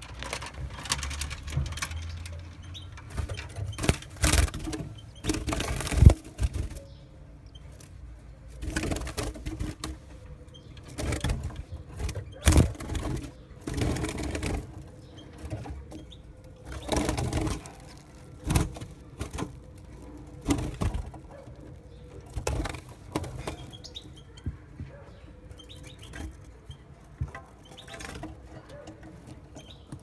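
Irregular rustling and fluttering noises inside a birdcage, each lasting about a second and recurring every couple of seconds, with one sharp knock about six seconds in.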